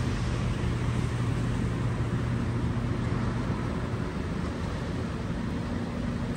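Rear-loading refuse truck running steadily, a low engine hum that drops back a little about halfway through.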